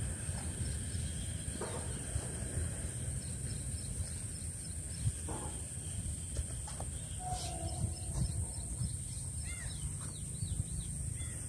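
Rural outdoor ambience: a steady low rumble, likely wind on the microphone, under a constant high-pitched drone, with a few faint bird chirps near the end.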